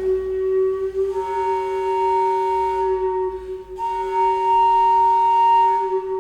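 Contemporary chamber music: two long held flute-like wind tones. A low note sustains throughout, and a higher note joins about a second in, breaks off briefly midway, then holds on with it to near the end.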